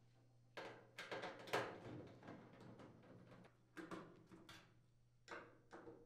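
Faint clicks and scrapes of a nut driver unthreading sheet-metal screws from a dryer's steel rear panel, in a few short spells, the loudest about one and a half seconds in.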